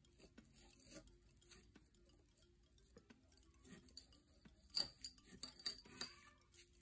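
Quiet handling of a glass jar: faint scuffs, then a quick cluster of about six light, sharp clicks of a metal crochet hook and fingers against the glass near the end.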